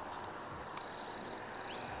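Outdoor ambience: a steady background hiss with a thin high tone in the middle and a faint bird chirp near the end.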